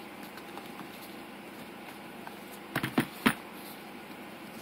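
Cardboard Samsung Galaxy S4 retail box handled by hand: a few light taps and knocks about three seconds in, over a steady faint hiss.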